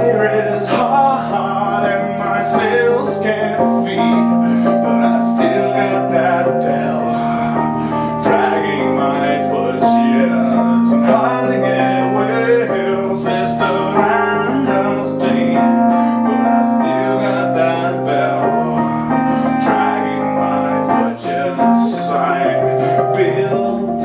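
Wurlitzer EP200 electric piano playing an instrumental passage: chords over a low bass line that steps to a new note every second or two.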